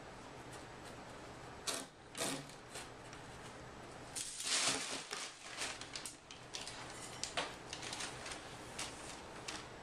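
A cat's paws tapping on a cardboard box twice, then about four seconds in a loud rustle of crumpled brown packing paper as the cat jumps into the box. Crinkling and crackling of the paper follow as the cat moves about in it.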